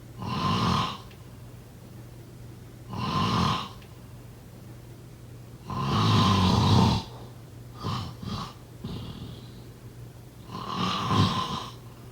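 A sleeping person snoring, a snore every two to three seconds. A longer snore in the middle is followed by two short snorts, and a steady low hum runs underneath.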